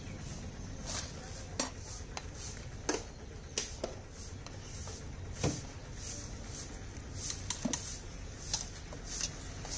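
Metal ladle knocking and scraping against an aluminium pot of boiling milk tea as it is stirred and lifted, in irregular clinks, over the steady low rush of the burner flame.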